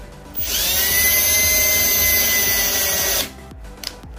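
Cordless drill boring a pilot hole into a wooden plank: the motor spins up about half a second in, runs steadily under load, and stops a little after three seconds.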